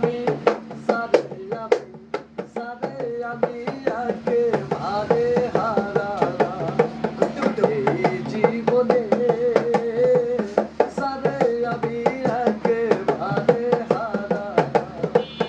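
Bengali Baul folk song music: a wavering melodic line over quick, steady hand-drum strokes.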